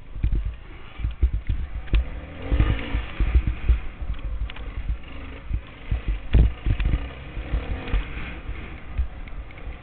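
Enduro motorcycle climbing a rough dirt trail, heard from a camera mounted on the bike: the engine runs under a steady rush of wind, and frequent irregular thumps and knocks come as the bike jolts over bumps and ruts.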